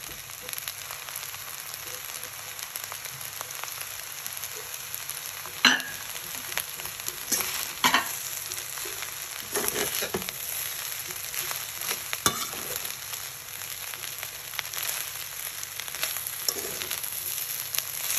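Rice and spinach sizzling in a hot stainless steel pan while being stirred and turned over, with a steady hiss and a few sharp scrapes of the utensil against the pan.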